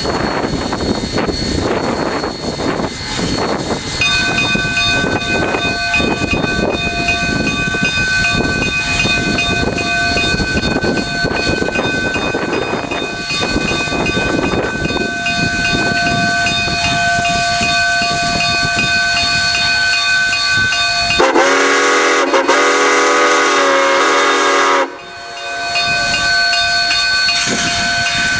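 Narrow-gauge K-36 Mikado steam locomotive #489 hissing steam at a standstill, with a steady high whine alongside. About 21 seconds in its steam whistle sounds one long blast of about three and a half seconds.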